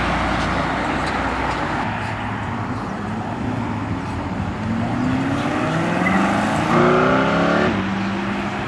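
A car accelerating away under hard throttle, its engine note climbing steadily in pitch over a few seconds. It is loudest near the end, then drops abruptly, as at a shift or lift-off, over steady road noise.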